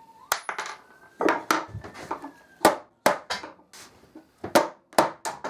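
A nylon-faced mallet knocking against a wooden leg mount to drive it loose from a plywood tabletop: a series of sharp knocks at an uneven pace.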